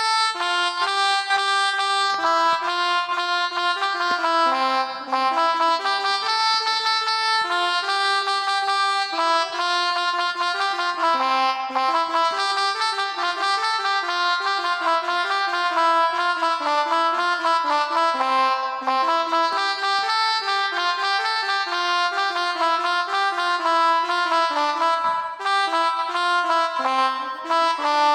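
Phone melodica (pianika) app playing a continuous melody of quick stepping notes, often two notes sounding together, in the manner of an Indonesian 'telolet' bus-horn tune.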